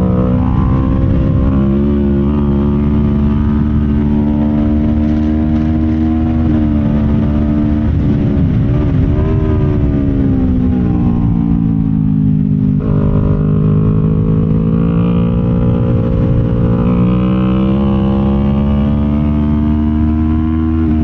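Kawasaki Ninja 500's parallel-twin engine running hard on track, its pitch climbing and falling as it revs and changes gear. Its pitch sinks slowly, then drops sharply and climbs again about thirteen seconds in.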